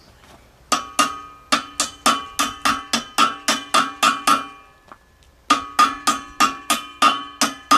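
Hammer tapping on steel at a concrete mixer's drum shaft, about three ringing metallic strikes a second in two runs with a short pause between them. These are the taps that seat a freshly greased bearing onto the shaft.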